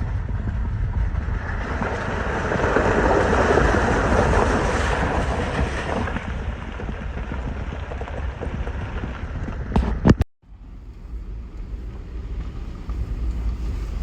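Vehicle driving on a back road: steady low engine and road rumble with tyre and wind noise, which swells for a few seconds about two seconds in. About ten seconds in, a sharp click and a moment where the sound drops out almost completely.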